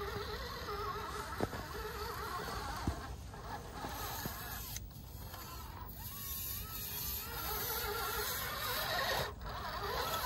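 Axial SCX10 Pro RC crawler's brushless motor and geared drivetrain whining at crawl speed as it picks its way over rock, the pitch rising and falling with the throttle, over a steady low rumble. A few sharp ticks come through, near the start and about three seconds in.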